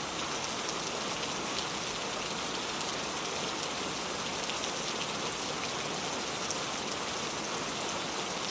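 Gentle rain falling steadily: an even hiss of many small drops on a surface.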